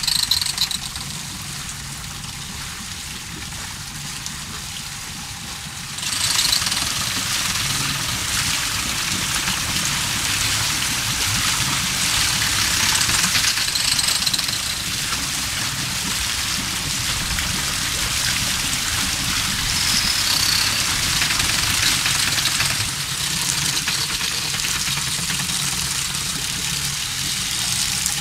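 Water pouring and splashing off a turning wooden irrigation waterwheel, with a low rumble underneath. It grows louder about six seconds in and eases again near the end.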